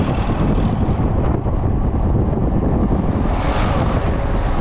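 Loud, steady wind buffeting the microphone of a moving vehicle, with road noise underneath.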